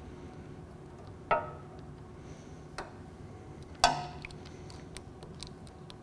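Steel saw chain clinking and rattling against its guide bar as it is worked loose and lifted off by hand: two sharp metallic clinks with a short ring, about a second in and near four seconds, with lighter ticks between.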